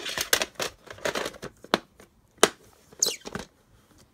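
Plastic VHS cassette and clamshell case being handled: a quick run of clicks, rustles and scrapes, with one sliding scrape about three seconds in.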